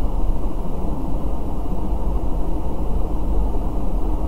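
Steady low rumbling background noise with a deep hum at the bottom and a faint high whine above it, with no distinct events.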